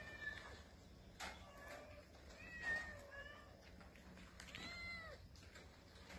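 Young street cat meowing: a series of short, fairly faint meows, the clearest one arching up and falling in pitch about three-quarters of the way through.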